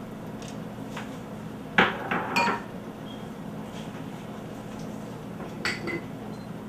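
Stainless steel pots and cooking utensils clinking: a sharp ringing knock about two seconds in, a few quick clinks right after, and two more near the end, over a low steady hum.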